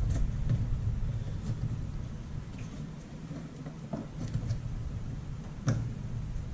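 Scattered small clicks and taps of hands working plastic wire connectors off a washer's water inlet valve, with one louder knock near the end, over a low steady room hum.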